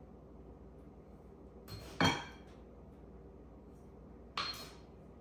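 A measuring cup knocking against glass twice, about two and a half seconds apart, the first the louder, each ringing briefly: sugar being scooped and tipped into a glass mixing bowl a quarter cup at a time.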